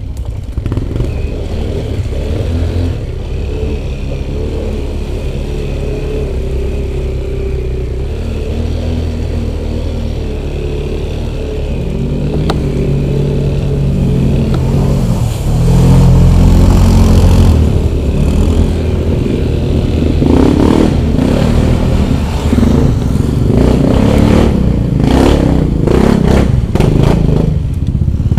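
Off-road motorcycle engine running at steady revs, then revving harder from about halfway through. Clattering and knocking come in over the last third.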